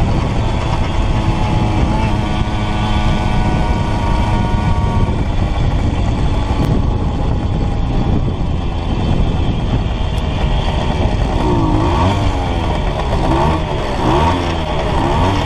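Simson S50 moped's 50 cc single-cylinder two-stroke engine running under way, its note steady for the first half and then wavering up and down in quick swings, with wind rush on the microphone.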